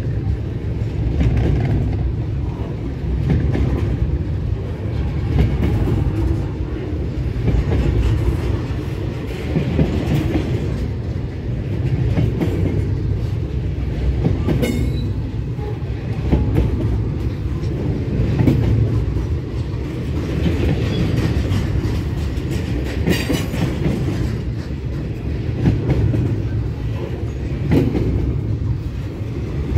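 Double-stack intermodal freight train's well cars rolling past close by: a continuous rumble of steel wheels on rail with clickety-clack over the rail joints, swelling and easing every few seconds as the cars go by.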